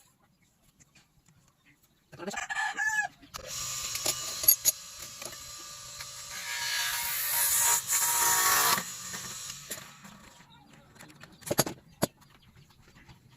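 A chicken calls briefly about two seconds in. Several seconds of rasping, scraping work noise follow, then two sharp clicks near the end.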